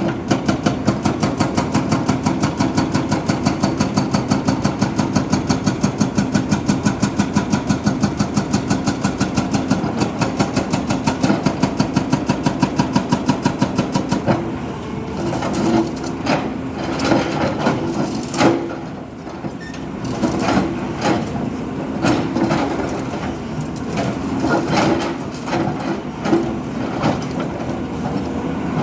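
Heavy diesel engine running with a fast, even beat. About halfway through the beat gives way to irregular knocks and clanks over a lower, steadier engine sound.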